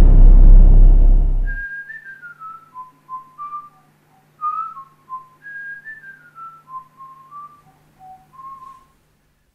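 A loud low rumble dies away in the first second and a half. Then a man whistles a slow tune with his lips, single clear notes stepping downward in a short phrase that he repeats about halfway through, over a faint steady hum.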